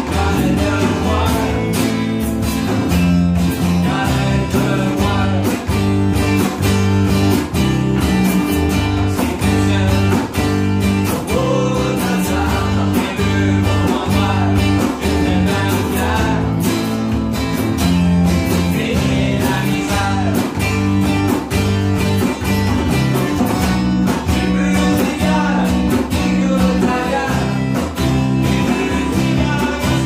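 Acoustic trio playing a steady groove: strummed acoustic guitar, acoustic bass guitar carrying a walking low line, and a hand drum played with the hands.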